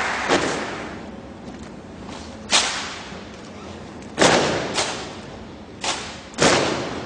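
Applause dying away, then six sharp, separate knocks at uneven intervals, each with a short echoing tail.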